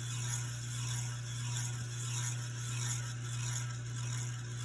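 Hampton Bay San Marino ceiling fan running, its motor giving a steady low hum under a faint whir that gently swells and fades. The owner suspects it might have a bad capacitor, as it doesn't spin as fast as it should.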